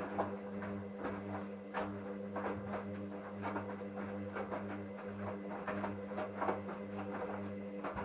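Hoover Dynamic A59 front-loading washing machine tumbling a wash: the drum motor hums steadily while wet laundry sloshes and knocks irregularly inside the turning drum.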